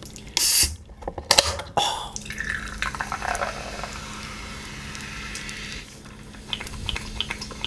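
A few sharp knocks and clatters. Then Coca-Cola is poured from a can into a glass, splashing and fizzing steadily for about four seconds. Near the end come small clicks and drips.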